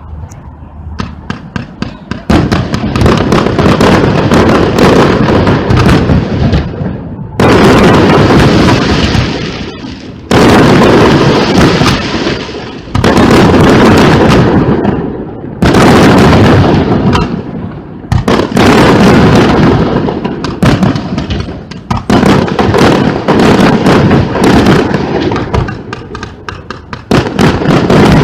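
Professional fireworks battery firing a rapid, continuous barrage of shell bursts and crackle, with a fresh loud wave of bursts every few seconds.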